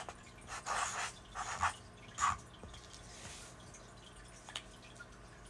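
Writing on a paper certificate: a handful of short scratchy pen strokes in the first two and a half seconds, then a fainter stroke and a few light ticks.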